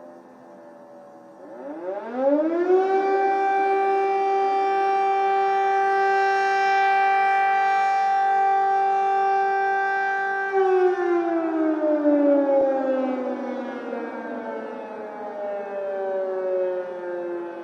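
Air-raid siren sounding an attack alert. It winds up to a steady wail about two seconds in, holds for roughly eight seconds, then slowly winds down in pitch. A fainter falling siren tone can be heard at the very start.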